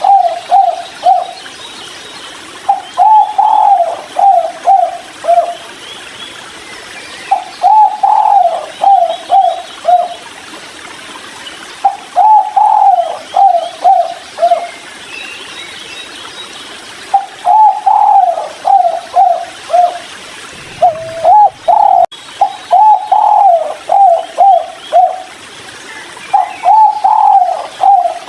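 Spotted dove (tekukur) cooing: repeated phrases of one longer coo followed by three or four short quick coos, a phrase every four to five seconds.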